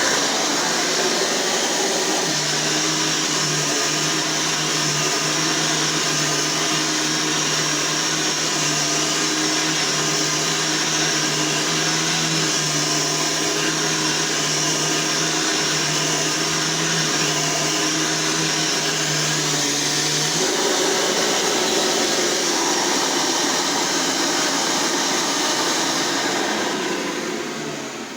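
Hoover Runabout vacuum cleaner, a 12-amp machine, running with a steady high-pitched motor whine, then switched off and winding down near the end.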